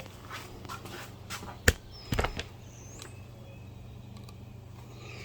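Clicks and knocks of tools and parts as a portable generator is being taken apart: one sharp click about a second and a half in, then a short clatter, over a steady low hum.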